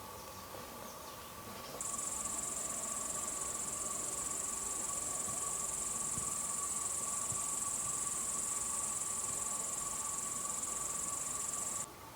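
A cricket chirring in one continuous high-pitched trill that begins about two seconds in and cuts off abruptly near the end.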